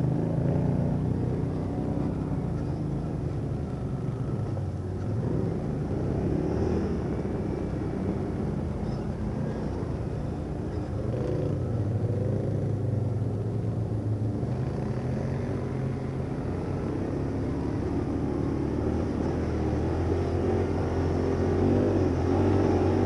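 ATV (quad bike) engines running under riding load on a dirt forest trail, heard close up from a bike-mounted camera. The engine note rises and falls with the throttle.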